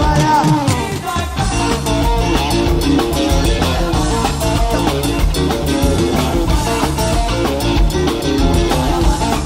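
Live pop-rock band playing, with drums, bass and electric guitars keeping a steady beat.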